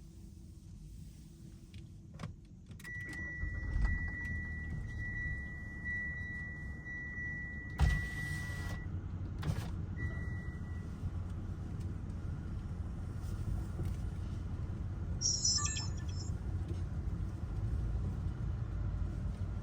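Inside a Mitsubishi Outlander: after a click, a steady high chime tone sounds for about six seconds while a low engine rumble comes in and then runs on steadily. There is a single knock about eight seconds in, another click, and a brief high chirp near the middle.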